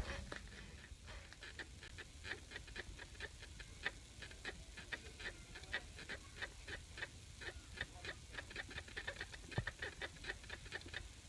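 Rubber rear suspension bushings (silent blocks) of an E-TWOW S2 electric scooter squeaking over and over, short high squeaks about three a second as the rear suspension is worked up and down. The squeak comes from the swingarm rubbing dry against the bushings.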